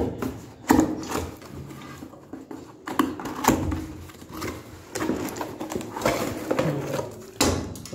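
Cardboard box being cut and opened by hand: a knife scraping through the packing, cardboard flaps pulled back and rustling, with several sharp knocks.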